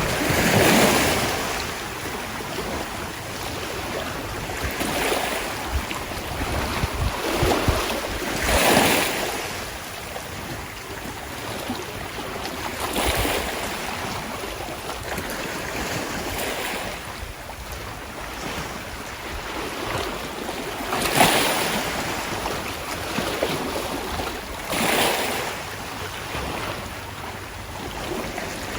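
Sea waves washing in and splashing, each surge swelling and fading about every four seconds, over a steady wash of water. Wind rumbles on the microphone in the first few seconds.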